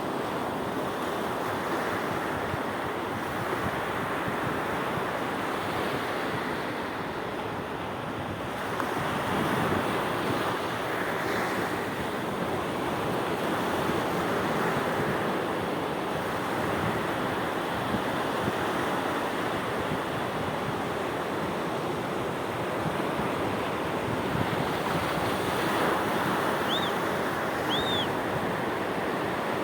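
Sea waves breaking and washing onto the shore in a continuous rush that swells and eases. Near the end there are two short high chirps.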